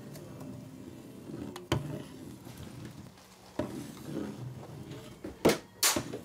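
A small round object knocked and clattered against a desktop as it is handled and spun: a couple of light knocks, then several sharp, louder knocks near the end.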